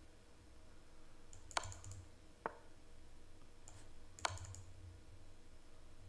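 A handful of faint, sharp clicks from moves being made in an online chess game, the clearest about one and a half, two and a half and four seconds in.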